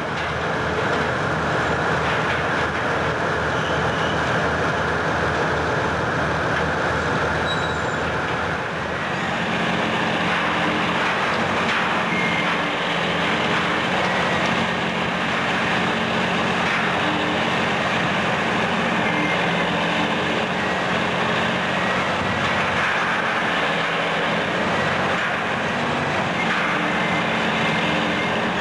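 Menck cable-operated crawler excavator running: its engine runs with a low rhythmic pulsing as the machine travels on its tracks, then after about nine seconds a steadier engine note as it works at demolition.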